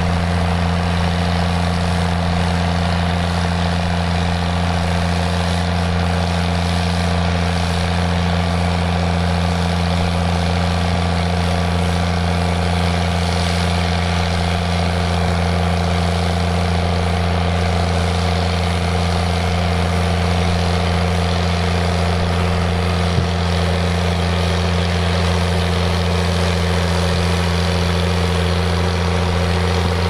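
New Holland 8360's 7.5-litre six-cylinder turbocharged diesel running steadily under load, pulling a trailed sugar beet harvester. The engine gives a loud, even drone at a constant speed.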